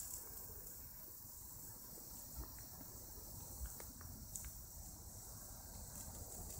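Faint outdoor background: a steady high hiss with a few soft ticks.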